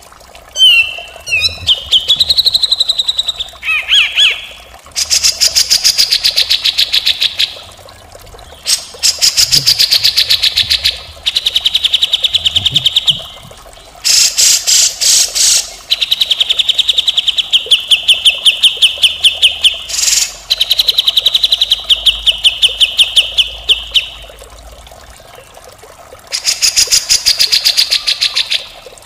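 Grey-cheeked bulbul (cucak jenggot) singing harsh, rapid rattling trills, each a few seconds long with short pauses between, opening with a few sliding whistled notes.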